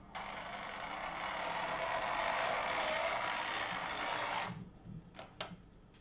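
OO gauge model N2 tank locomotive running on analogue DC: the steady whirr of its electric motor and gears with the wheels on the rails, growing louder as it comes closer and cutting off suddenly about four and a half seconds in as it stops. A few light clicks follow.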